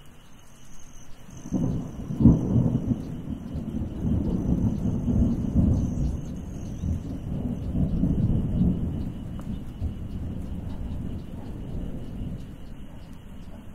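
Thunder: a rumble builds about a second and a half in, breaks into a sharp crack just after, then rolls on for several seconds and fades toward the end.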